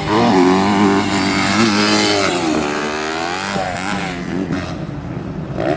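Motocross bike engines revving hard on track. The pitch falls about halfway through, then climbs again.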